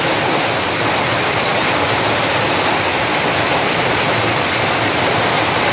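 Hailstorm: hailstones falling thick and steady onto a tiled courtyard, a continuous clatter of countless small impacts.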